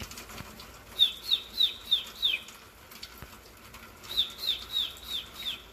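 A small songbird chirping in two runs of five short, high, downslurred chirps, about three a second, the runs some two seconds apart.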